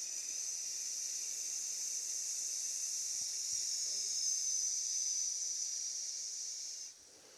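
A long, steady 'sss' hiss breathed out through the teeth, the lung sound of the Six Healing Sounds qigong practice. It is held for about seven seconds and stops sharply near the end.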